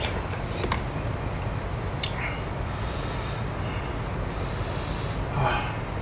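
Close-up eating sounds: chewing and mouth noises over spicy stir-fried chicken sundae, with a few sharp clicks of wooden chopsticks against plastic takeout containers in the first two seconds, and a louder breathy snort-like sound near the end.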